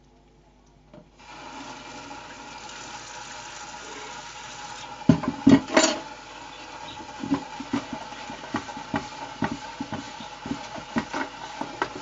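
Water running steadily, switching on suddenly about a second in, with irregular knocks and clatter from about five seconds in.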